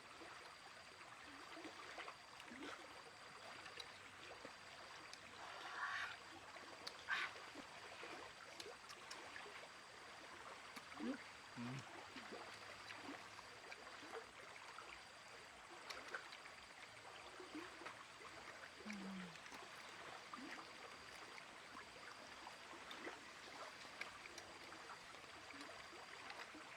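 Very quiet ambience: a low hiss with a faint steady high tone and scattered soft clicks and knocks, the loudest about six and seven seconds in.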